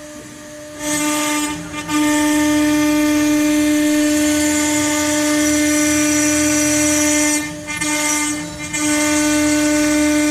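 CNC router spindle whining at a steady high pitch while its bit cuts letters into a wooden board, with a hissing cutting noise. The sound swells up about a second in and dips briefly twice, once near two seconds and again around eight seconds.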